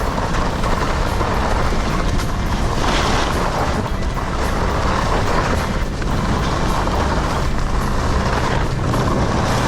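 Wood-core Icelantic Nomad 95 skis running fast over snow: a steady rushing, scraping noise, with the skis chattery underfoot.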